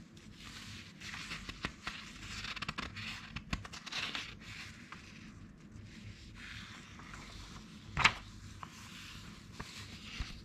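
Old 1960s magazine paper handled and turned by hand: dry rustling and sliding of the pages under the fingers, with one sharp, loud crackle of paper about eight seconds in.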